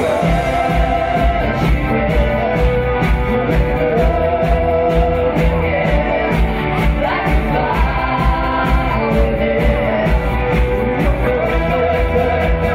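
Live worship band: several voices singing together in long held notes over acoustic and electric guitars, with a steady low beat underneath.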